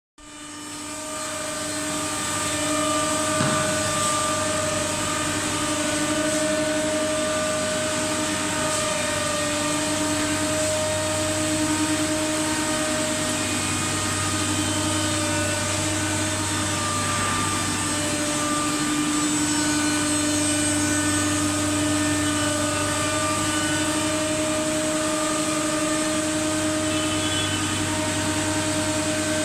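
Xiaofeng MSK2513A-M CNC nesting router running, a steady whine of several even tones over a low hum and hiss.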